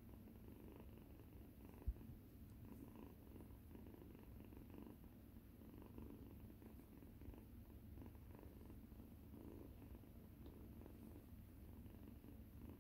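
Faint, steady purring of a domestic cat, with a single low thump about two seconds in.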